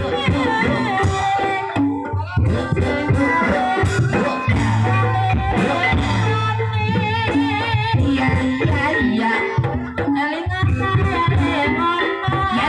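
Live campursari music for an ebeg dance: drums beating steadily under the ensemble, with a long low held tone in the middle and a singer's wavering voice near the middle.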